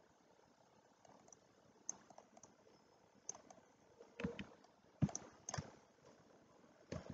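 Faint, scattered clicks and taps of a computer mouse and keyboard: a few single clicks a second or so apart, coming more often in the second half, with a short run of taps about four seconds in.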